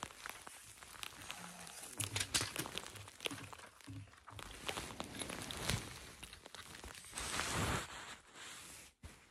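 Handling and rummaging noise: clothing brushing over the phone's microphone, with scattered small clicks and crinkles of things being moved about. A louder rustle comes about seven seconds in.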